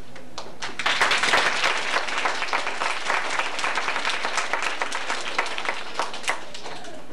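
Audience applauding: many hands clapping, swelling about a second in, then thinning out and stopping shortly before the end.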